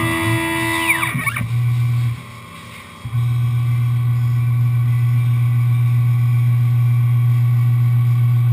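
Tormach 1100M CNC milling machine running. For the first second its motors whine in pitches that rise and fall, then stop. After a brief lull, a strong, steady low hum sets in about three seconds in as the spindle head travels upward.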